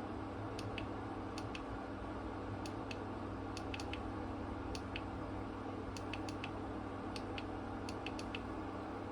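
Faint, irregular clicks from a flashlight's push-button switch being pressed again and again to cycle through its modes, over a steady low hum.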